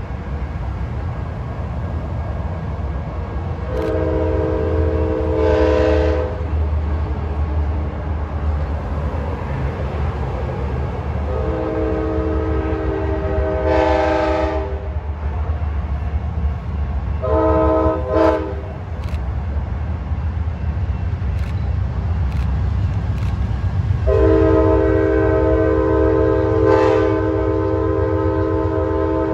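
Approaching locomotive's multi-chime air horn sounding a chord in four blasts, long, long, short, long: the standard signal for a grade crossing. A steady low rumble runs beneath.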